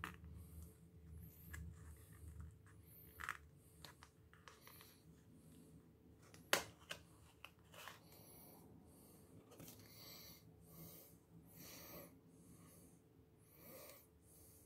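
Near silence: faint breathing and the soft rustle of a baseball rip card being handled as the mini card inside is worked out, with one sharp click about six and a half seconds in.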